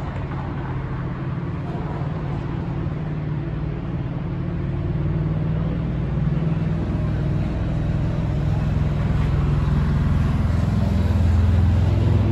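City street traffic with a motor vehicle's engine running, a low hum that grows steadily louder toward the end as the vehicle comes closer.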